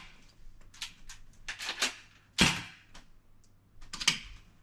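A sharp air gun shot about two and a half seconds in, among a scatter of lighter clicks and knocks from guns and gear being handled.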